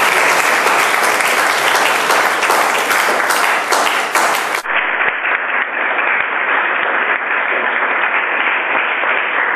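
An audience applauding steadily, many hands clapping at once; the sound turns duller about halfway through.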